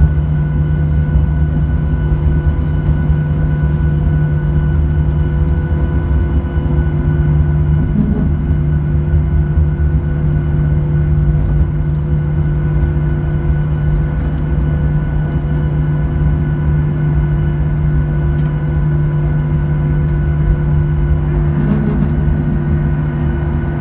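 Cabin noise of a Boeing 737-900ER heard from a window seat by the wing: its CFM56 jet engines running steadily, a loud low rumble with a few steady whining tones above it.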